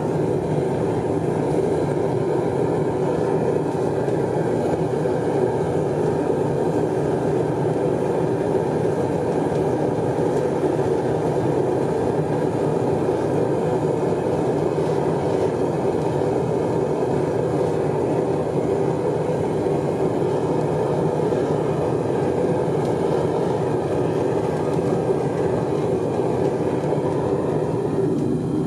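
Metal-melting furnace running with a steady, unbroken rushing noise.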